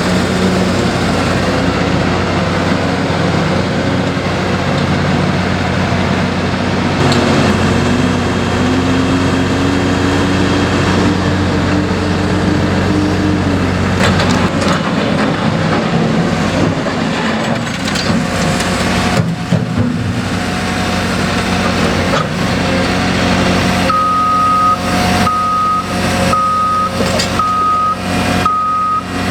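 Diesel engines of heavy construction machinery running steadily, one rising in pitch and holding for several seconds about a quarter of the way in, with scattered knocks later on. Near the end a machine's backup alarm starts beeping, about one beep every second and a bit.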